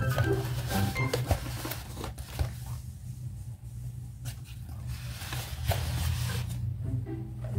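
Background music with a steady low bass drone and short melodic notes at the start and end, thinning out in the middle, where scattered light clicks and taps are heard.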